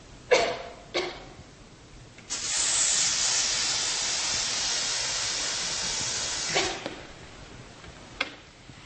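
Two short knocks, then a steady hiss that starts suddenly about two seconds in, lasts about four seconds and stops, followed by a single click near the end.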